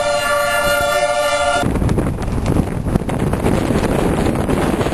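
A steady, multi-tone warning blast, a siren or horn, cuts off abruptly about a second and a half in. After that, loud wind noise buffets the microphone.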